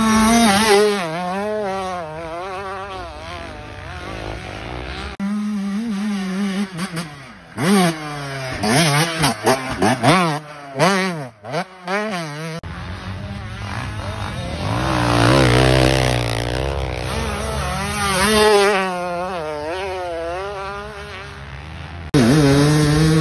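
Two-stroke motocross bikes revving hard and easing off over and over, the engine pitch rising and falling with the throttle. Around the middle the engine comes in short bursts with sharp drops in between, and the sound changes abruptly a few times where one clip cuts to another.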